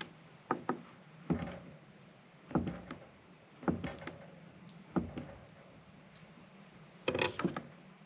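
Kitchen knife cutting through a block of cheese and knocking against a wooden cutting board: a string of sharp, irregular knocks, with a close pair early on and a quick cluster near the end.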